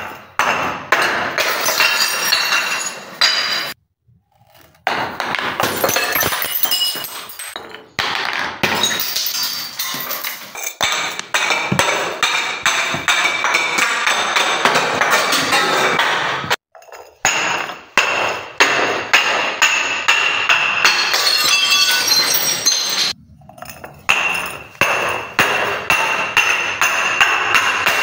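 Glass bottles filled with water beads rolling and tumbling down marble stairs, clinking and knocking against the stone steps in dense runs of sharp clicks. The runs are broken by brief silent gaps four times.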